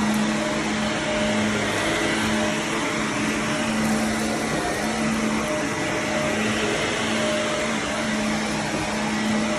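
Shark vacuum cleaner running steadily over carpet, a dense rushing noise with a low motor hum that swells and fades about once a second.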